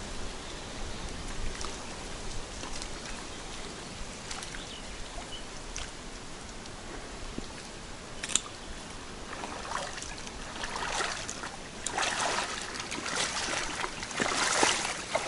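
Steps in waders sloshing through shallow, weedy water, starting about ten seconds in and growing louder as they come closer. Before that there is only a faint hiss with a few light ticks and one sharp click.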